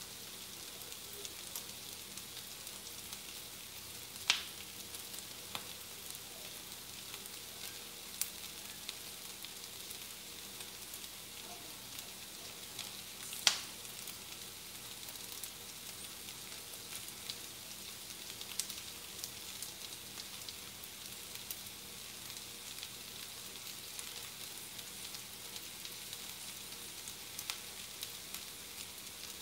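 Food sizzling and crackling in a frying pan on a stovetop burner, a steady high hiss with small crackles and two sharp pops, about four seconds in and near the middle.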